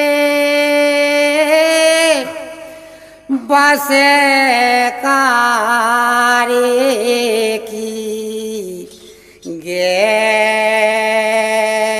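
Bundeli Rai folk music: a slow, drawn-out melody of long held notes with slow pitch bends and no clear drumbeat. It fades out twice, about two and about nine seconds in, each time followed by a new phrase.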